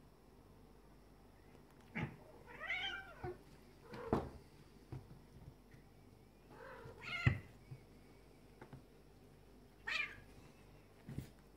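Two domestic cats tussling, with three drawn-out meows a few seconds apart. Several sharp thumps come from the grappling.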